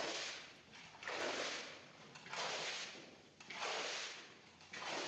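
Rhythmic wet swishing strokes of a cleaning tool drawn across a soaking Persian rug during the rinsing stage, about five strokes, one every second or so, each starting sharply and fading away.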